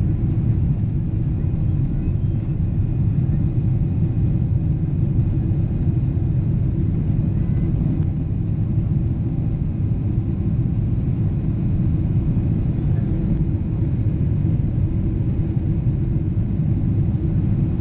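Boeing 777 jet engines heard from inside the cabin as a steady, even low rumble that does not change.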